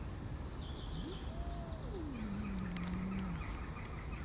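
A cat's long, drawn-out yowl: it rises, holds briefly, then slides down into a low moan that is held for over a second, the kind of sound an angry cat makes. Faint small bird chirps are heard early on.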